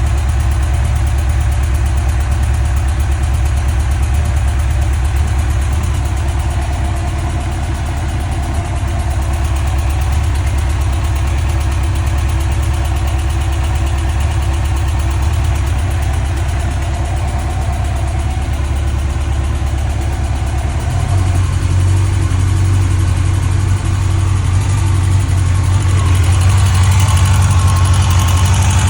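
2005 Yamaha FJR1300's inline four-cylinder engine running at idle, with the ticking noise its owner is chasing. About two-thirds of the way in, the engine note rises slightly and grows louder.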